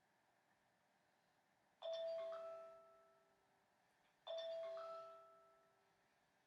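Phone alarm tone going off: a doorbell-like chime of a few notes, sounding twice about two and a half seconds apart, each ringing and fading out over a second or so.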